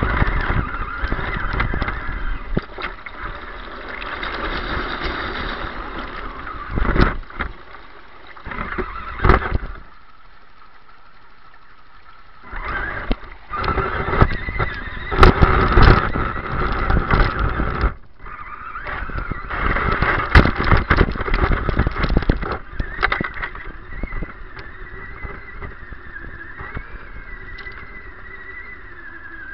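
RC truck's electric motor and gears whining, rising and falling with the throttle, over splashing and the scrape and crackle of brush against the body. The drive stops for about two seconds around the middle, then picks up again.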